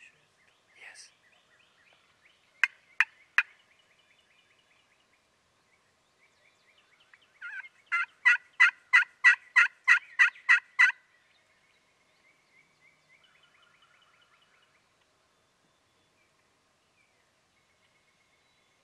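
Turkey calling in hen-style clucks and yelps: three sharp clucks about three seconds in, then a run of about ten evenly spaced yelps, roughly three a second, lasting about three seconds. Fainter calling is heard before and after.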